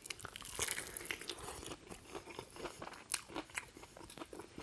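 Close-miked biting and chewing of a crispy-coated KFC hot wing: many small sharp crunches of the fried breading, thickest in the first second and a half, then sparser.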